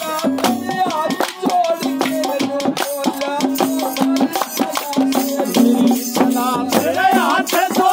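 Live folk music: a wavering melody over sustained low tones, with a fast, dense rattling percussion beat throughout.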